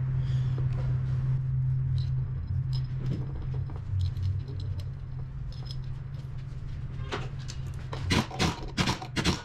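Pneumatic impact wrench fired in several short bursts near the end, running down the water pump pulley bolts, after light metal clinks of the pulley and bolts being fitted by hand. A steady low hum runs underneath.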